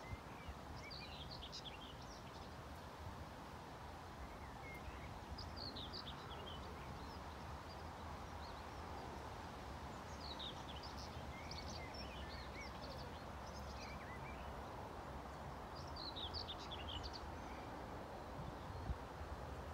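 Small birds singing in short bursts of quick chirping notes every few seconds, over a steady low background rumble.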